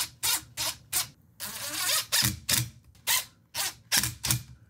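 Gloved hands handling and working parts on a partly reassembled Hitachi NV45AB2 coil roofing nailer: an irregular series of short scrapes and clicks, with a longer rubbing sound about a second and a half in.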